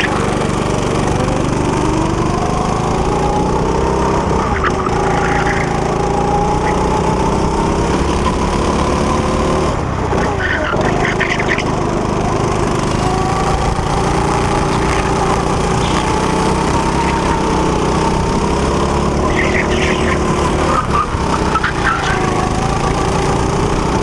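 Go-kart's small engine running at speed, heard from onboard, its pitch slowly rising and falling as the kart lifts off and accelerates through the corners.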